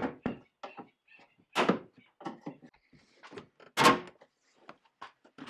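Plastic trim-panel clips on a Land Rover Discovery 2 door snapping loose one after another as the door card is pried off its studs with a panel popper. It is an uneven series of sharp snaps and clicks, the loudest about four seconds in. This snapping is normal when popping the panel.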